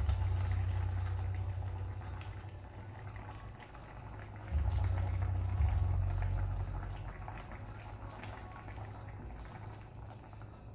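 Milk sauce simmering in a frying pan with a soft bubbling crackle, as cream is poured in and scraped from a glass bowl with a silicone spatula. A low hum runs underneath, swelling again about four and a half seconds in.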